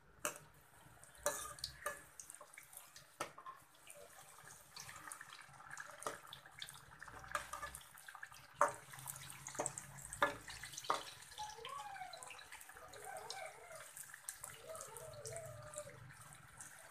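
Urad dal bhallas (lentil fritters) deep-frying in hot oil in an aluminium kadai: a steady, crackling sizzle. A few sharp clinks of a metal slotted spoon against the pan stand out as the fritters are turned.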